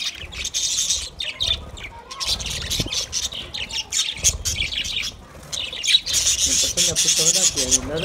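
A flock of budgerigars chattering: a dense run of quick high chirps and squawks that comes in waves.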